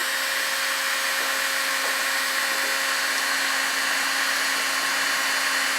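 Electric heat gun blowing steadily, its fan motor giving a constant hum under the rush of air, as it shrinks heat-shrink tubing over wire ends.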